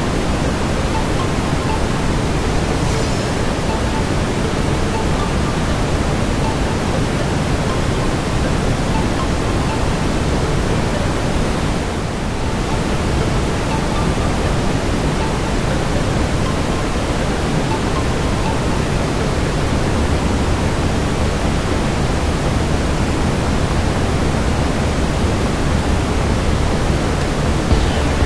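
Steady brown noise: an even, deep hiss weighted toward the low end. The faint crackle of a wood fire lies underneath.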